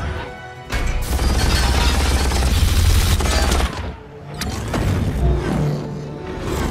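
Action-film soundtrack mix: music under a dense volley of gunfire and blasts that starts about a second in and lasts about three seconds. It cuts off suddenly, then music and effects build up again.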